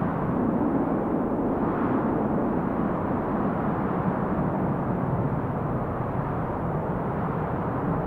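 Synthesized wind: white noise from a Hybrid 3 synth through a filter swept by an LFO, with a strong peaking EQ boost in the low mids around 160–180 Hz that gives it a stormy weight. A steady rushing noise with gentle swells, its energy sitting low.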